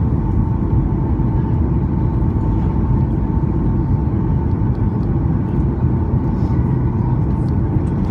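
Airliner cabin noise inside a Boeing 737 descending toward landing: a steady low rumble of engines and rushing air, with a faint steady tone on top.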